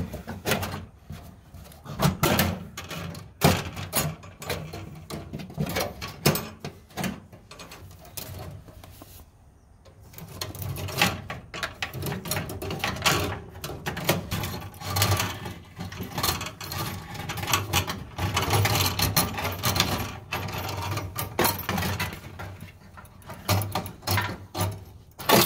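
Irregular clicks, knocks and scraping of a steel brake line being handled and worked loose, the metal tubing tapping and rubbing against the car's sheet-metal firewall.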